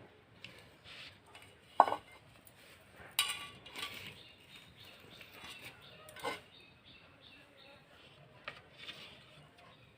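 Kitchen dishes and utensils being handled: a few separate sharp clinks and knocks, the loudest about two seconds in, then smaller ones spread through the rest.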